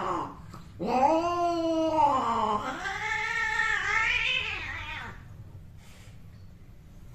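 Domestic cat caterwauling during mating: one long drawn-out yowl that wavers down and then up in pitch, starting about a second in and dying away after about five seconds. The end of an earlier yowl is heard just before it.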